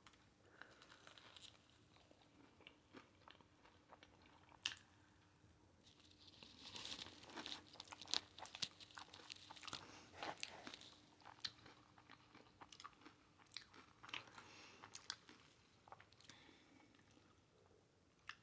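Close-up chewing of crunchy hot Cheeto-breaded fried pickles, crisp crackling crunches coming in a cluster from about six seconds in and fading to scattered crunches later.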